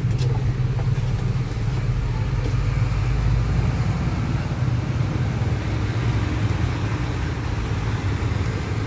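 A vehicle engine running steadily, giving an unchanging low hum.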